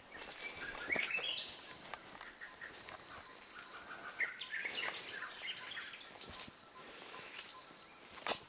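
Steady high-pitched drone of forest insects, with bird calls about a second in and again around four to five seconds in. There are a few soft footfalls on the muddy trail.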